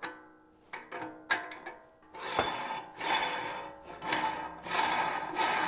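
Metal parts of an electric meat grinder's head being handled as the grinding plate is changed: a few clicks, then from about two seconds in a run of scraping, rasping rubs of metal on metal as the ring is screwed on, with background music underneath.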